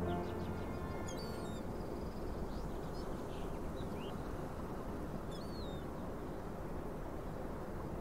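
Small birds chirping a few times in short, quick calls over a steady low ambient rumble. A musical chord fades out in the first second.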